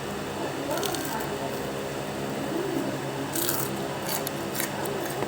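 Crunching and chewing of crispy deep-fried snacks close to the microphone: a few sharp crackly crunches about a second in, then a denser run of crunches from about three seconds in. A steady low hum runs underneath.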